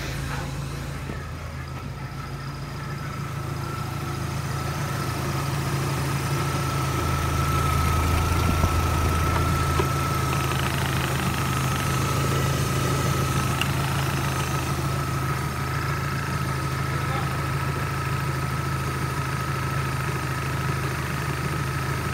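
Citroën Xsara Picasso's 1.8-litre 16-valve four-cylinder petrol engine (EW7J4, code 6FZ) idling steadily, with a thin steady high tone over the low running note. The sound grows a little louder over the first several seconds as the engine bay is approached.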